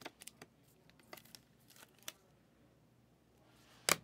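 Trading cards being handled and flipped through by hand: a series of light clicks and ticks as the cards slide over one another, with one sharper click near the end.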